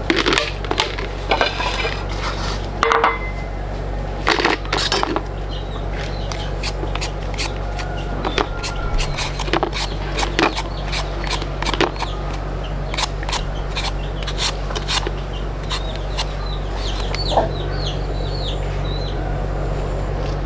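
Irregular sharp clicks, knocks and clinks, dozens of them, over a steady low hum. A rooster's crow ends right at the start.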